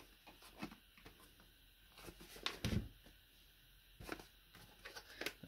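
A small cardboard box being handled and turned over: faint scrapes and light taps, with one soft thump about halfway through.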